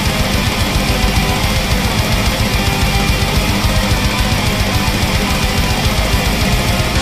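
Black metal band playing live through a loud PA: distorted electric guitars over fast, dense drumming, without a break.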